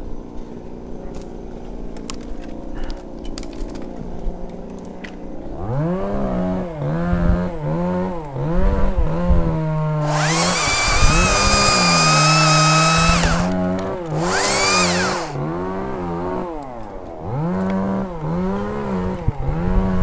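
Makita top-handle chainsaw revved in short trigger pulses, its pitch rising and falling about once a second, starting about six seconds in. About halfway through it is held at full speed for roughly three seconds as it cuts into a branch, then runs briefly at full speed again.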